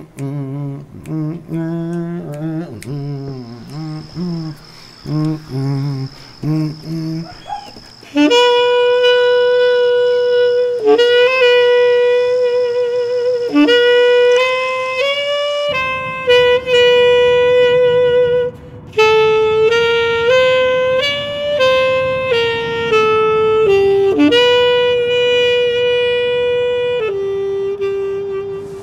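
Jazz saxophone playing a slow solo melody, the first notes lower and wavering, then long held higher notes from about eight seconds in. A faint hiss joins from about halfway.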